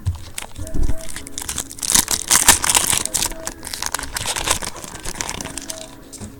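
Trading card pack wrapper being torn open and crinkled, a dense crackling that is loudest about two to three seconds in and fades toward the end.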